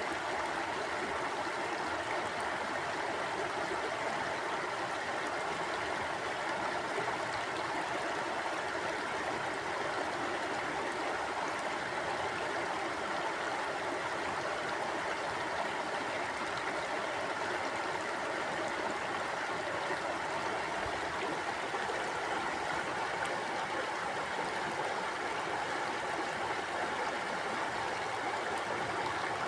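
River water flowing steadily, an even rushing with no breaks or changes.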